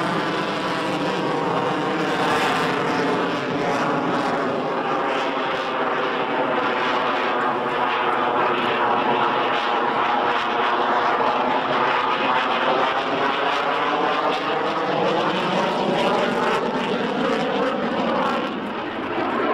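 A JAS-39 Gripen single-engine jet fighter flying overhead during a display, giving a steady, unbroken jet roar. The roar has a hollow, phasing tone that slowly sweeps up and down in pitch, and it dips briefly in loudness near the end.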